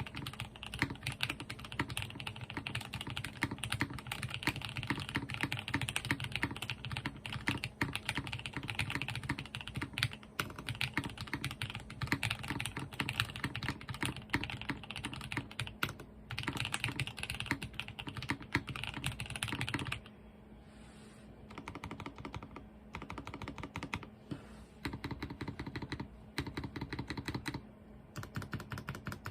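Fast, continuous typing on a Cheap60 60% mechanical keyboard with C3 Tangerine linear switches lubed with Krytox 205g0, under Domikey doubleshot keycaps. About two-thirds of the way through it becomes quieter and duller, in short bursts with brief pauses.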